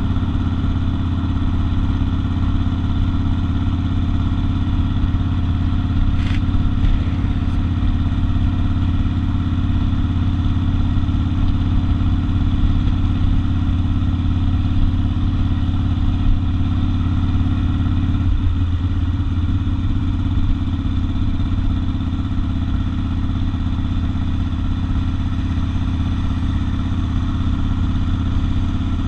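Harley-Davidson XL 1200 Custom Sportster's air-cooled V-twin engine and exhaust running steadily at cruising speed. There is a brief change in the low note about eighteen seconds in.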